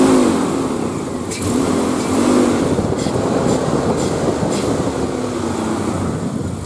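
The 5.9 Magnum V8 of a 2000 Dodge Ram 1500, fitted with headers and a cold air intake, is revved by hand a few times from idle. Each rev rises in pitch and falls back.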